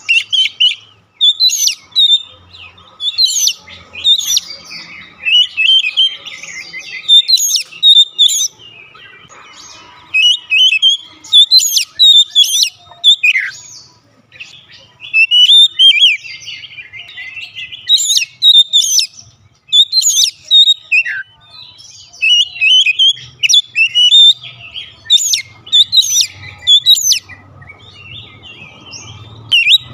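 Oriental magpie-robin (kacer) singing loudly and almost without pause: a rapid, varied run of whistled phrases and sharp notes, broken by short gaps. A couple of quick downward-sliding whistles stand out, one about halfway through and one about two-thirds of the way in.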